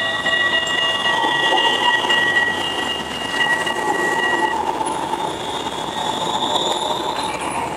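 RET Alstom Citadis tram rolling past at close range, its wheels giving a high steady squeal that stops about halfway through while the rolling noise goes on.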